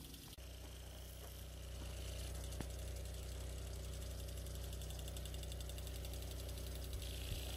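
Steady low hum of an engine running, growing a little louder about two seconds in, with a faint even hiss over it.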